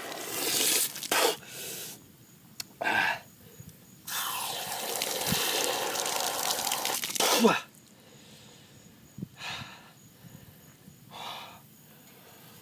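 Water from a garden hose splashing into a man's mouth in bursts, the longest lasting about three and a half seconds, with spluttering, gasping breaths between as he rinses out the burn of a superhot chili pepper.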